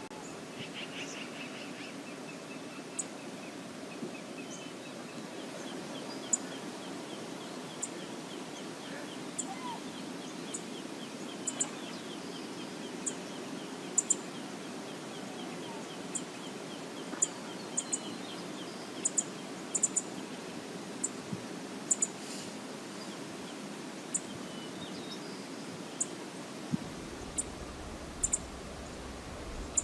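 Steady rush of river water with short, high bird chirps scattered throughout, and a faint rapid trill in the first third.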